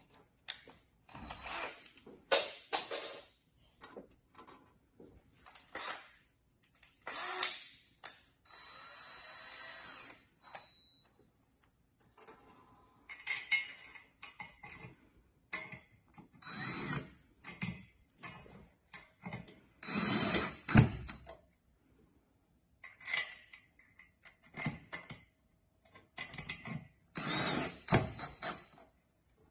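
Cordless drill driving wood screws up into a chair's wooden seat, run in many short bursts with pauses between them; one run, about eight seconds in, lasts a couple of seconds.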